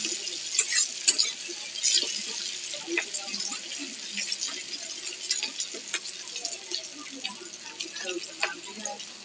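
Sliced onions and green chillies sizzling in hot oil in a kadai, with a steady crackling hiss. A spatula stirring them scrapes and clicks against the pan every second or so.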